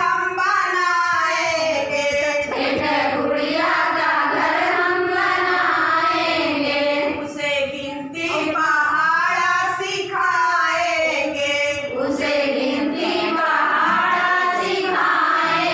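A group of women singing a rhythmic action song together, in phrases with short breaks between them.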